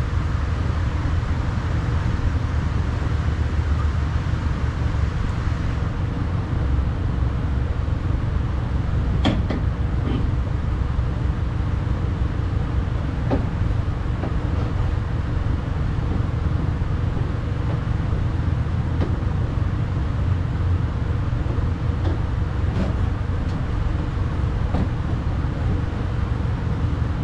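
A steady low rumble runs throughout. Over it come a few faint, scattered clicks and taps as window-regulator parts are handled and fitted inside a pickup's door.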